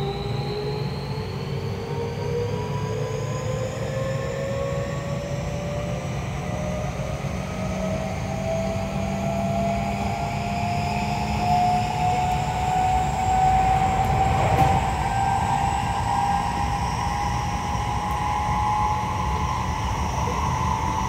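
Hitachi IGBT-VVVF inverter and traction motors of a Seibu 30000 series train accelerating, heard from inside the car: several whining tones rise steadily in pitch over the low rumble of the wheels on the rails. A brief clatter comes about two-thirds of the way through.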